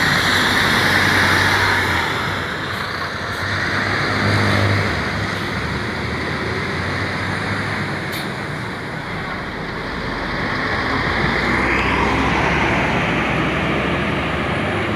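Road traffic noise: a large vehicle's engine running and passing, with tyre and road noise that swells again near the end.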